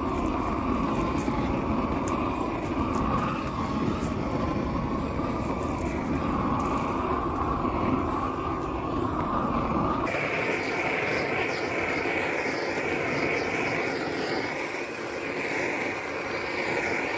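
Propane roofing torch burning with a steady rushing flame as it is played over plastic shrink film. About ten seconds in, the pitch of the rush jumps up and its low end thins, because the footage is sped up to double speed.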